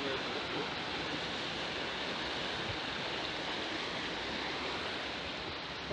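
Steady rushing of running water from a stream, an even hiss with no breaks.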